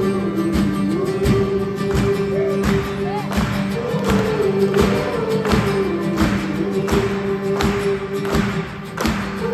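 Live acoustic band music: a strummed acoustic guitar beating out regular strokes, with a long wordless melody line held and wavering above it.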